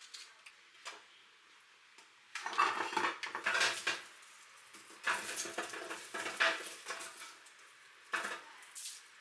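Kitchen clatter of dishes and utensils being handled, clinking and knocking in three bursts: a longer one about two seconds in, another around five seconds in, and a short one near the end.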